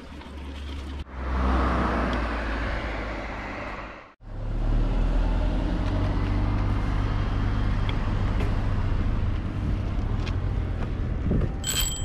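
Steady road and wind noise while riding a bicycle, a low rumble under a broad hiss. The sound changes abruptly about a second in and drops out for a moment about four seconds in, and a short sharp click comes near the end.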